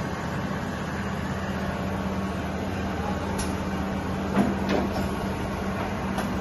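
Kasuga Q-600G CNC vertical milling machine running with a steady hum and a few light clicks and knocks.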